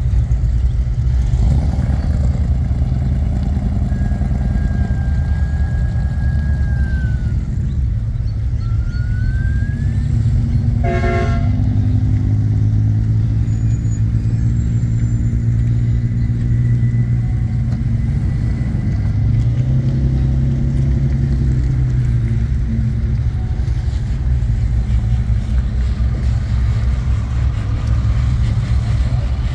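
Rally cars and four-wheel drives idling and pulling away slowly in a convoy, a steady low engine rumble that swells as vehicles move off. There is a short horn toot about eleven seconds in, and a couple of high whistled notes before it.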